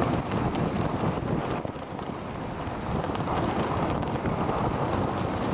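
Wind buffeting the microphone over rushing water, a steady rumbling rush that thins out briefly about a second and a half in and then builds again.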